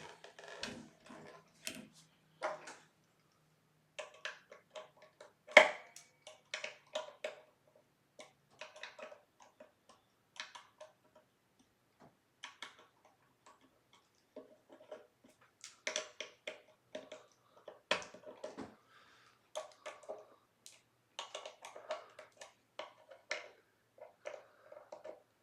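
Screwdriver checking and tightening the screws on a stripped-down Squier Jagmaster guitar: scattered small clicks, taps and scrapes of metal on screw heads and hardware, coming in irregular short runs with pauses between.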